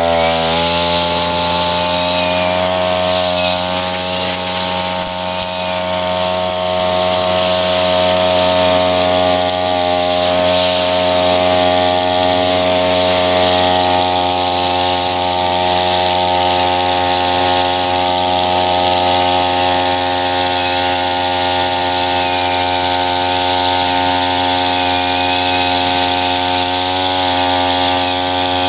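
Tabata 32 cc two-stroke backpack brush cutter, fitted with an eight-strand nylon line head, revving up in the first second and then running steadily near full throttle as it cuts through thick tall grass.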